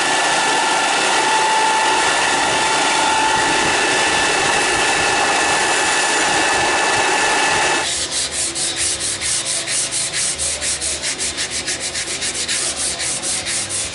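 Steel knife blade ground on a running belt grinder: a steady grinding noise that stops about eight seconds in. Quick rhythmic rubbing strokes follow, about five a second.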